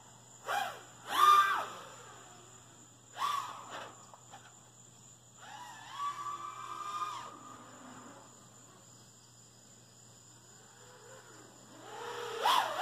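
Small RC car's electric motor whining in short bursts, rising and falling in pitch as it speeds up and slows, with one longer held whine in the middle.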